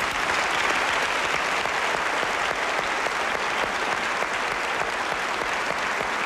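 Audience applauding, a steady round of clapping that holds at full strength throughout.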